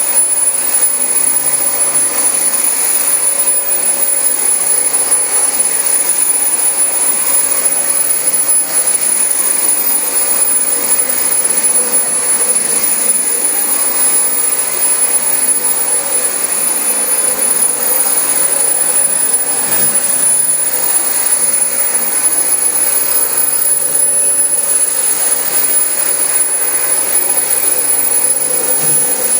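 Dyson DC25 upright vacuum cleaner running steadily while vacuuming carpet: a loud motor-and-airflow rush with a constant high whine.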